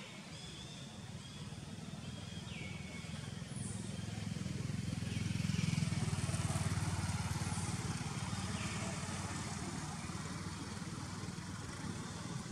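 A motor vehicle passing on the road, its engine noise swelling to its loudest about six seconds in and then fading away. A few faint, short, high calls come and go over it.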